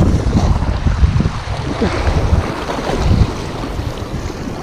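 Wind buffeting the microphone, with waves washing and breaking against shoreline rocks.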